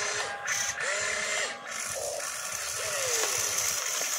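Electric motors of a toy RC excavator whining in short strokes as it swings its arm and dumps a bucket, the pitch rising and falling with each move, over a steady high hiss.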